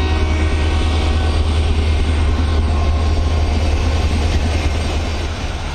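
ALCO diesel locomotive's engine running steadily at close range, a deep low hum with a rough mechanical haze above it. The hum weakens slightly near the end.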